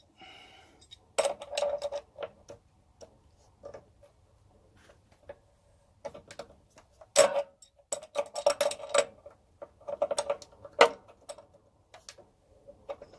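Adjustable wrenches clinking and clicking against a metal water-line fitting as it is being tightened, in irregular clusters of sharp metal clicks with a short ring, the loudest about seven and eleven seconds in.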